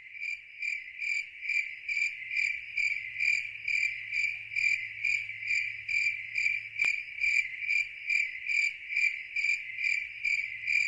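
A cricket chirping in a steady, even rhythm, about three chirps a second, with one faint click about seven seconds in.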